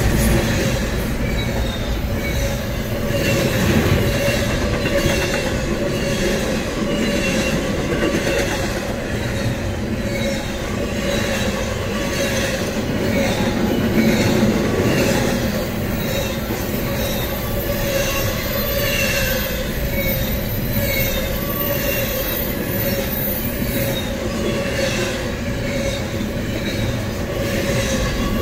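Double-stack intermodal container freight train rolling past: a steady loud rumble and clatter of wheels on rail, with a thin steady wheel squeal running through it.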